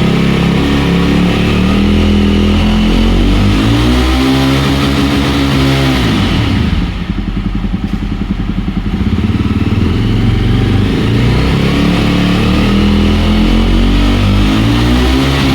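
Jawa 42 Bobber's 334 cc single-cylinder engine and exhaust revved hard while the bike stands still, very loud. The pitch climbs for several seconds and falls back when the throttle is let off about six seconds in, then climbs again near the end.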